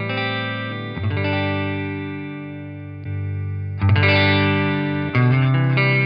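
Solid-body electric guitar played with a clean tone, chords strummed and left to ring. From about four seconds in the chords come louder and brighter, as the Kernom Ridge overdrive is brought in as a clean boost.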